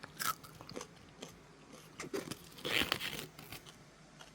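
Raw cabbage leaf being bitten and chewed close to the microphone: a run of crisp, wet crunches, with a loud bite right at the start and the loudest crunching about three seconds in.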